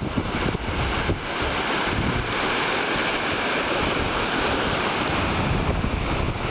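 Surf breaking and washing up the sand in a steady rush, with wind buffeting the microphone.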